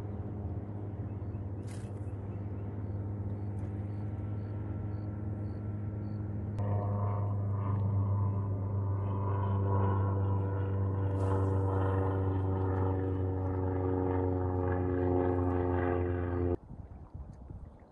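An engine running steadily with an even, pitched hum; it gets louder about six and a half seconds in and cuts off abruptly near the end.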